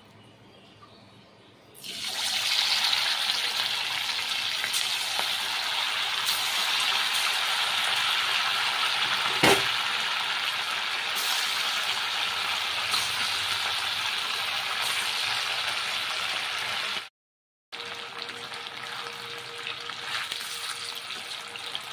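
Battered chicken pakoras deep-frying in hot oil in a kadai: a loud, steady sizzle that starts suddenly about two seconds in as the pieces hit the oil. A single sharp click about halfway through; after a brief dropout near the end the sizzle goes on a little quieter.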